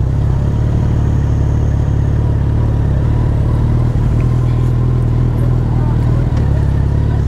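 Suzuki Hayabusa's inline-four engine running steadily at low revs as the bike rolls slowly.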